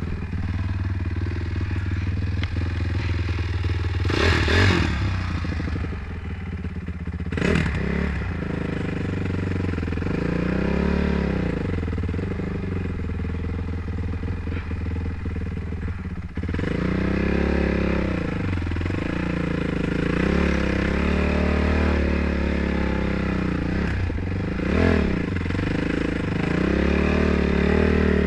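Honda CRF450R dirt bike's single-cylinder four-stroke engine running while ridden along a trail, its pitch rising and falling as the throttle is opened and closed. A few short loud rushes of noise come about four and seven seconds in and again near the end.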